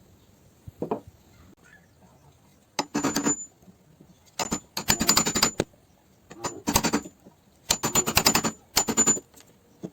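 Hand saw cutting wood in five short strokes, each a rapid rasping of teeth with a faint high ring from the blade. A single light knock comes about a second in.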